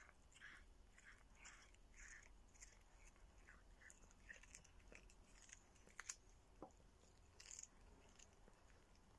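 A cat chewing on a scrap of meat and bone: a faint run of short, crisp chews, about two a second, with an occasional sharper click.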